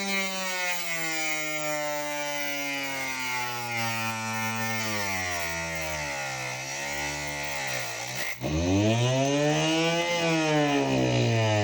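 Homemade table saw's electric motor running with its pitch sinking steadily for about eight seconds, as if slowing under the load of a cut. A little past halfway it drops sharply, then winds back up and slows again.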